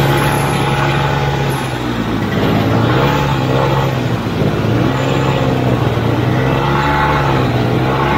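Vintage AMF Ski Daddler snowmobile's single-cylinder two-stroke engine running under way, its note rising and falling several times as the throttle is worked.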